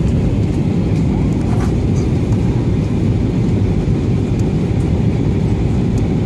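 Steady low roar of engine and airflow noise inside the cabin of an Airbus A320 airliner on approach, heard from a window seat.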